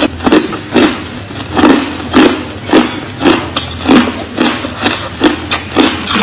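Crushed ice being chewed close to the microphone: a steady run of crisp crunches, about three a second.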